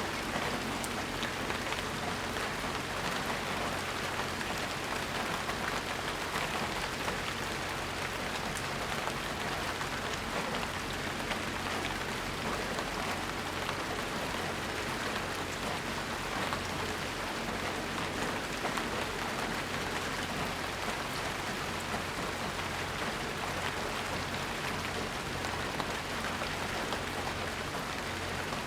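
Steady rain falling, an even hiss with the patter of individual drops striking surfaces, with no thunder.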